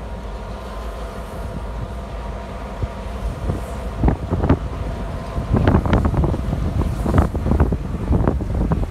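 EMD diesel locomotives running with a steady low hum and a faint whine. From about four seconds in, gusts of wind buffet the microphone in uneven rushes.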